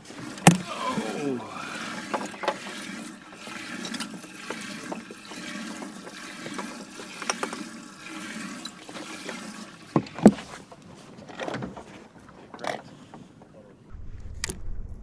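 Water splashing and trickling around a boat, with a few sharp knocks, the loudest about ten seconds in.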